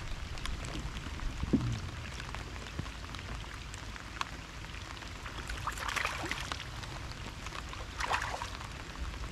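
Steady rain falling on the lake and pattering on a rain jacket, with many scattered sharp drop ticks over a low rumble. Two brief louder swishes stand out about six and eight seconds in.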